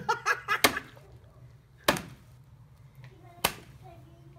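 Three heavy blade blows chopping through a pig carcass's backbone, about a second and a half apart, each a sharp smack into meat and bone.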